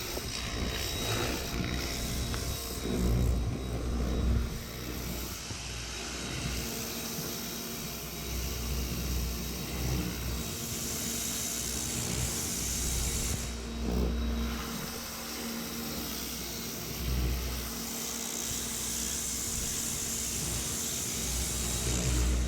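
Pressure washer running, with a steady rumble that swells and eases and a spray hiss that grows stronger at times, from about ten seconds in and again near the end.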